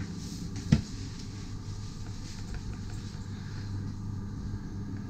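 A low steady hum, with one sharp knock just under a second in.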